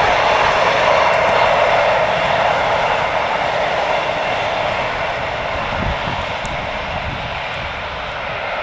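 Container freight train's wagons rolling along the track, a steady noise of wheels on rail that slowly fades as the tail of the train draws away.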